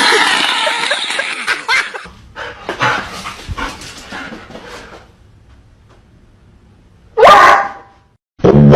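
A dog vocalizing: a loud, noisy stretch at the start, then one short, loud bark a little after seven seconds in.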